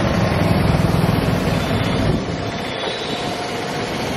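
Street traffic: a motor vehicle's engine rumbling loudly for about the first two seconds, then easing off into steady road noise.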